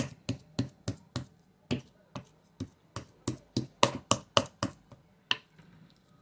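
Hands slapping and patting seasoned ground beef to compact it into a steak haché patty: a quick series of sharp slaps, about three a second, with a last single slap about five seconds in.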